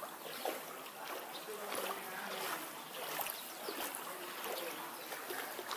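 Floodwater splashing and sloshing, with irregular short splashes over a steady watery rush.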